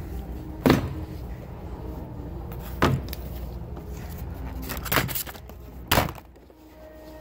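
Items being set and dropped into a plastic shopping cart: about five sharp knocks, two of them close together, over a low steady rumble.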